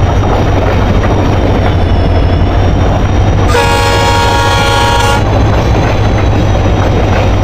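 Train sound effects: the steady rumble of a moving train, with a train horn blown once for about a second and a half midway through.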